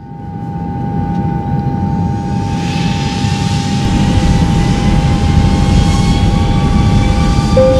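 Boeing 777 twin turbofan engines spooling up for the takeoff run. A deep rumble carries a steady whine and higher whines that rise slowly, and a rushing noise swells in as the whole sound grows louder.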